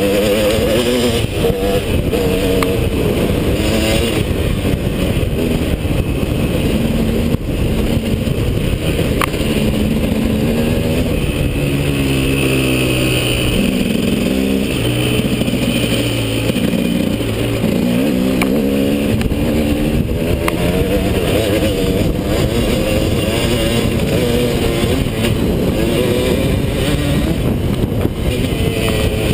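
KTM 250 SX two-stroke single-cylinder motocross engine under riding load, its pitch rising and falling as the throttle is worked across rough ground.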